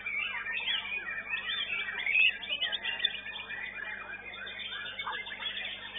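Contest songbirds singing a fast, dense stream of whistled and chattering notes that glide up and down, loudest about two seconds in.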